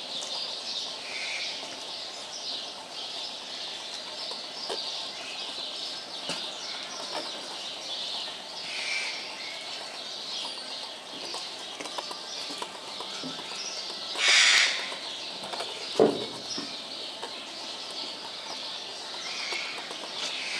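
Many birds chirping and calling in a dense, continuous chorus. About two-thirds of the way through, a short, loud rushing noise cuts in, and a single sharp knock follows a moment later.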